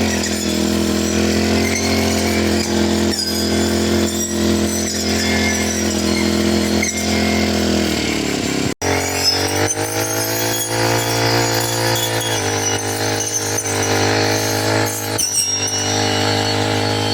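Four-stroke brush cutter engine running steadily at high speed; its pitch sags about eight seconds in as the throttle eases, then after an abrupt break it runs again at a slightly higher, steady pitch.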